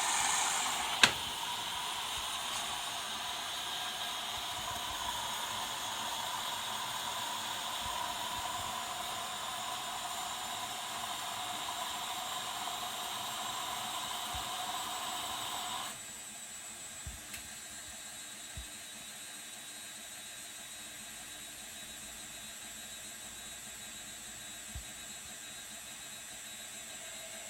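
Candy Optima washing machine taking in water at the start of a Cottons 60° wash: a steady hiss of water rushing in, with one sharp click about a second in. The hiss stops abruptly about sixteen seconds in as the fill ends, leaving a quiet hum with a few soft clicks.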